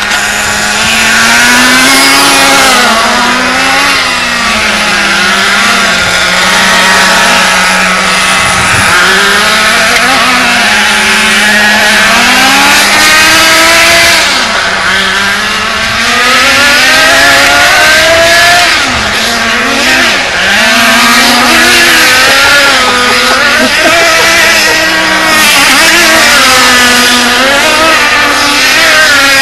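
Two Smartech nitro RC buggies' small glow-fuel engines running at the same time, each revving up and down on its own as the buggies are driven. One holds a fairly steady pitch for the first half while the other rises and falls in quick sweeps.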